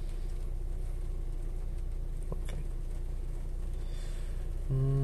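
Hyundai car's engine idling, heard inside the cabin as a steady low hum. Near the end a louder, flat-pitched hum starts and holds for about a second.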